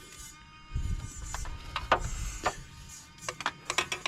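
Background music with held tones, over a low rumble and several sharp clicks and knocks, the loudest about two seconds in and a quick run of them near the end.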